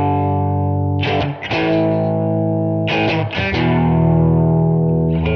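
Outro music: distorted electric guitar chords, each struck and left to ring out, three of them: at the start, about a second in, and about three seconds in.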